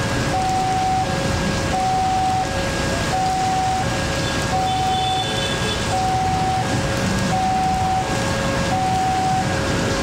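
Railway level-crossing alarm sounding a steady alternating two-tone ding-dong, about one high-low pair a second. Under it is the hiss of heavy rain and the noise of a passing electric commuter train and road traffic.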